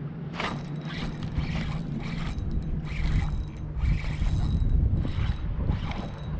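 Fishing reel working in repeated short bursts of ratcheting, whirring clicks while a fish is on the line.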